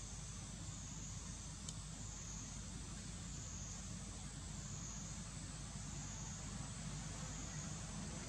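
Steady insect chorus in forest, a high buzzing band that swells and fades about every second and a half, over a low steady rumble, with one faint click about two seconds in.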